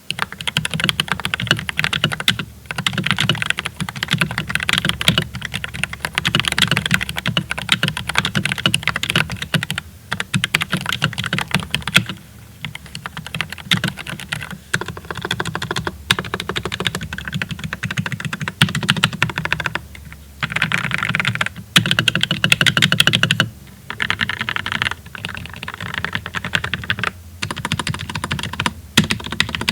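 Fast typing on a GMMK 2 96% mechanical keyboard with Glorious Lynx linear switches: a dense run of keystroke clacks, broken by brief pauses a few times.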